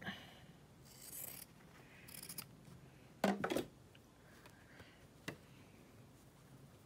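Cotton quilting fabric rubbing and rustling as a scrap patch is laid in place at the sewing machine, with short scrapes, one loud knock about three seconds in and a small click near five seconds.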